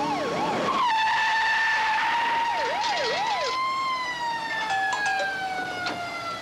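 Police car siren yelping in rapid rising-and-falling sweeps, switching about a second in to a long held tone that slowly sinks in pitch, with another short run of yelps around three seconds in. A few sharp clicks come near the end.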